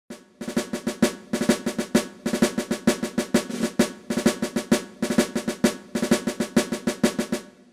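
Intro music of fast drum strikes, several a second, over a steady low pitched note, fading out near the end.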